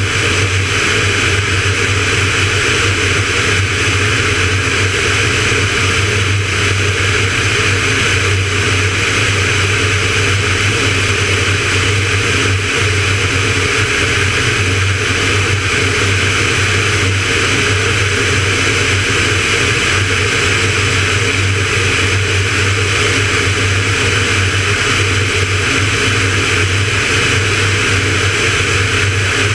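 Van's RV-9A light aircraft in cruise: its piston engine and propeller give a steady, unchanging drone with a low hum under a rushing hiss of airflow.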